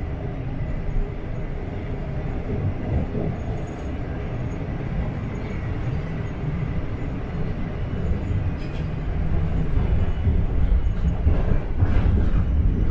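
Toronto Line 1 subway train running, heard from inside the car: a steady low rumble of wheels and motors on the track that grows louder in the last few seconds.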